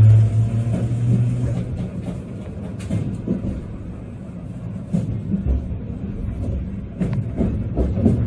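Streetcar running along its tracks, heard from inside the car: a strong steady motor hum that fades out over the first couple of seconds, then the rumble and rattle of the car with scattered sharp knocks.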